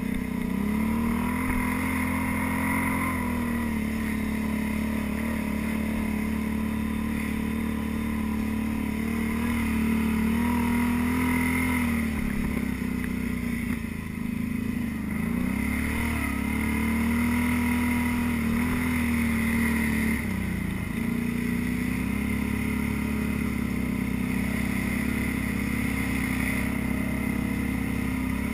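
ATV engine running under changing throttle on a rough trail, its pitch easing off and climbing again several times as the rider lets off and gets back on the gas.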